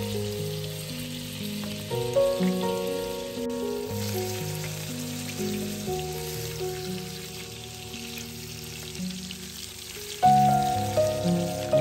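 Salmon fillets sizzling in hot oil in a frying pan, a fine steady hiss, under background music with a stepping melody that gets louder about ten seconds in.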